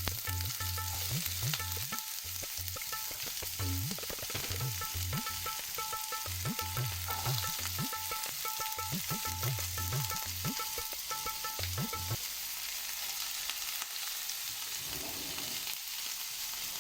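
Chopped onion sizzling and frying in hot oil in a pan, with stirring. A pulsing low hum with faint on-off tones runs under it and stops about twelve seconds in.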